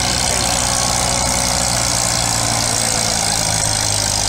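Antique farm tractor engine running steadily at a constant pitch.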